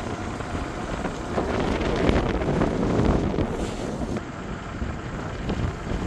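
Wind buffeting the microphone: a rough, uneven rumble with gusty surges.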